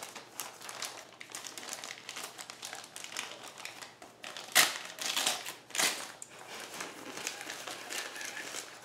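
Packaging crinkling as a parcel's contents are unwrapped by hand, a steady run of small crackles with a couple of louder crinkles about halfway through.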